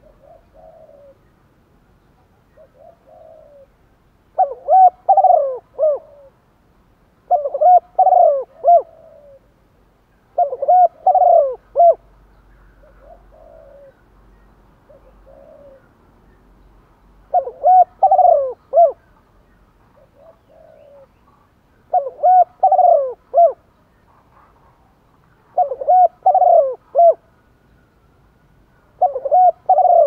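Spotted dove cooing its song, a decoy male calling to lure wild doves: seven loud cooing phrases, each lasting under two seconds and coming every three to four seconds, with fainter short coos between them.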